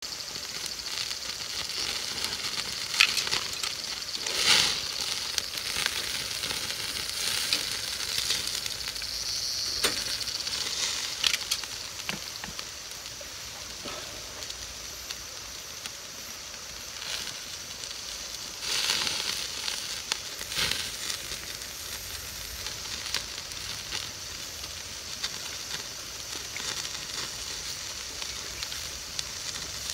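Pork and vegetables sizzling on a wire mesh grill over charcoal, a steady hiss broken by sharp pops and crackles several times.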